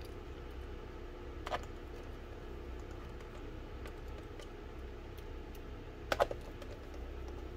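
Precision screwdriver driving small screws into a laptop's bottom case: light ticks and taps of the bit and screws, with a click about one and a half seconds in and a sharper cluster of clicks near the end, over a steady low hum.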